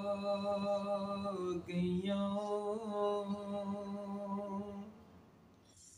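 A man singing Punjabi verse unaccompanied, holding two long, steady notes with a short break between them about one and a half seconds in. His voice stops about five seconds in.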